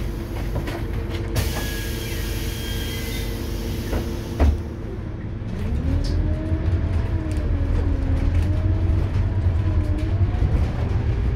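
Scania K280UB city bus's five-cylinder diesel heard from inside the passenger cabin: idling at first with a hiss of air for a few seconds, then a knock. About five and a half seconds in, the bus pulls away, the engine note climbing and dipping as the ZF Ecomat automatic gearbox changes gear.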